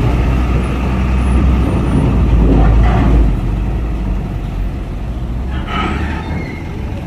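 Truck engine running as the truck passes close by, a loud low rumble that drops away about three seconds in.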